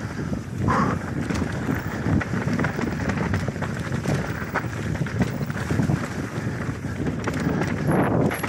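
Wind buffeting the microphone of a mountain bike descending a dry, rocky dirt trail at speed, mixed with tyre noise on the ground and the bike rattling and knocking over rocks and bumps.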